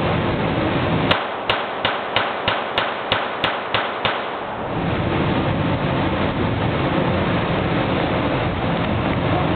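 A Norinco M-93 .22 semi-automatic pistol fired about ten times in quick succession, roughly three shots a second, each shot ringing briefly in the indoor range. A steady rushing noise runs underneath and carries on after the firing stops.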